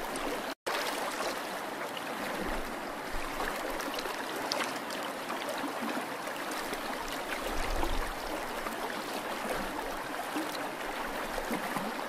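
Water trickling and gurgling steadily around a sinking cardboard model ship, with scattered small ticks of drips or bubbles. The sound drops out for an instant about half a second in.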